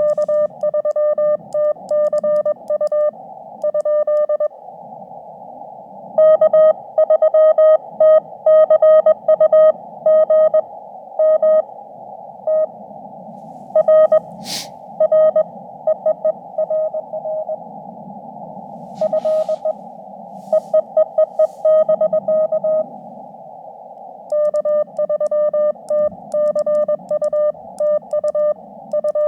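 Morse code (CW) from a ham radio transceiver: a steady tone near 600 Hz keyed on and off in dots and dashes over a band of receiver hiss. Some stretches of code are louder than others. About halfway through there is one brief sharp hiss.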